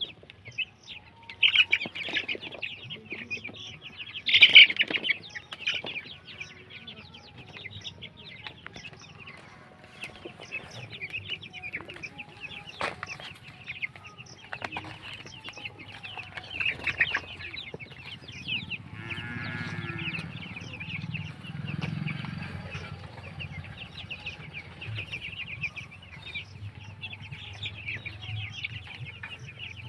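A flock of Banaraja chickens calling: a continuous chatter of high chirps and clucks, with a louder burst of calling about four seconds in. A low rumble joins for a few seconds past the middle.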